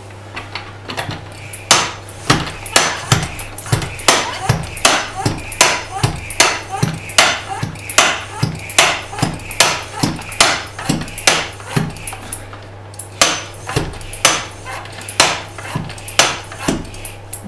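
Hatsan high-pressure PCP hand pump being worked steadily to fill an air cylinder: a fast, even run of sharp clacks, about two a second, with a brief pause about twelve seconds in.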